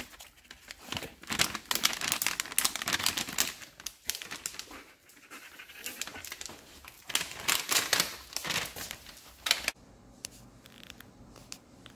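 German Shepherd panting and sniffing close up at a plastic dog-treat bag that crinkles in a hand, with dense crackly strokes that stop suddenly near the end.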